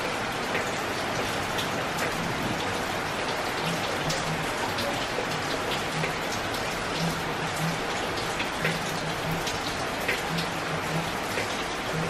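Steady rain falling, with scattered drops tapping and dripping on leaves.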